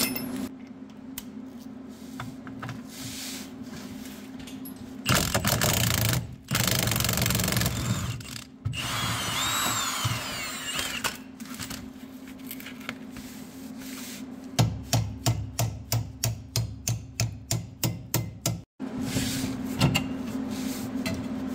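Milwaukee cordless impact wrench run in short bursts on a rear lower shock bolt, loosening it, with a fast run of rapid pulses in the last several seconds.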